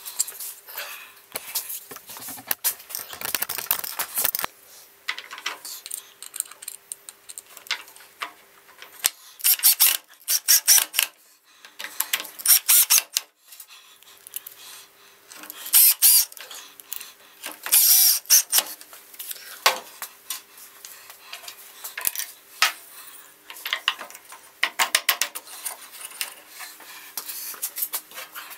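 Irregular short bursts of clicks, knocks and ratcheting rattles as wood and metal parts and hand tools are handled and fitted to a wooden table saw fence lock, over a faint steady hum.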